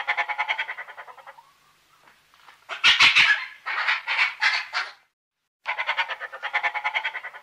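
Bat-eared fox calling. A rapid run of pulsed chattering, about ten a second, fades out. It is followed by a louder cluster of several short calls, then a second fast pulsed run that fades again near the end.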